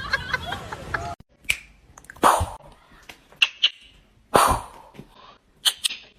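Music and voices stop abruptly about a second in. Then a dog gives a series of short, sharp sounds, five or six of them about a second apart.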